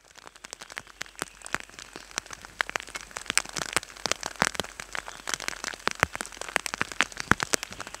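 Rain falling steadily, many individual drops landing close by in sharp, irregular taps over a soft hiss of rainfall.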